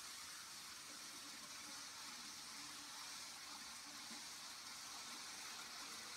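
Faint steady whir of Z-scale model trains running around the track, under a constant hiss.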